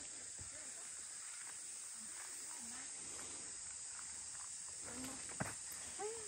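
Steady high-pitched chorus of rainforest insects, with a single sharp click a little after five seconds in.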